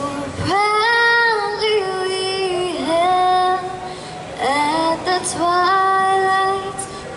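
An 11-year-old girl singing solo, holding long notes across two phrases with a short break a little past halfway.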